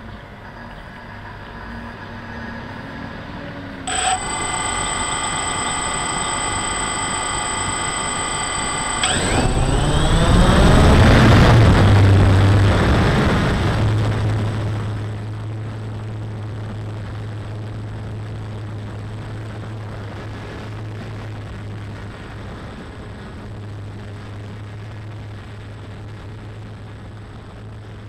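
DJI Phantom 1 quadcopter's brushless motors and propellers, heard through the camera mounted on the drone. About four seconds in the motors start with a steady, high, multi-toned whine. About nine seconds in they spin up for takeoff with a loud rush of propeller noise, then settle into a steady propeller hum while hovering.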